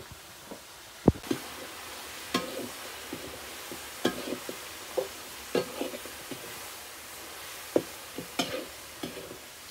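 Meat and onions sizzling in a steel wok over a wood fire, stirred with a metal ladle that clicks and scrapes against the pan at irregular intervals. The loudest sound is a sharp knock about a second in, after which the sizzling grows louder.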